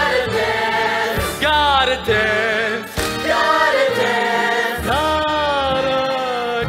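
Musical-theatre singing with instrumental accompaniment: voices hold long notes with vibrato, the last held for well over a second and sliding slightly down.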